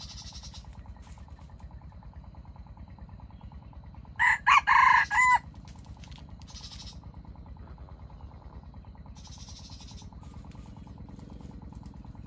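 A junglefowl rooster crows once, about four seconds in. The crow is short and loud, just over a second long, made of a few quick broken notes that end in a bent final note.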